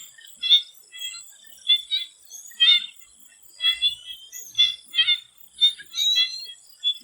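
Swamp frogs calling in a chorus: short, sharp calls repeating about once or twice a second, over a steady high-pitched drone.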